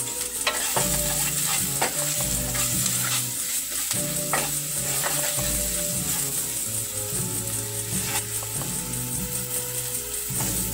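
Chopped onion and garlic sizzling in hot olive oil in a stainless steel pot, stirred with a wooden spoon that scrapes and taps the pot now and then, over background music.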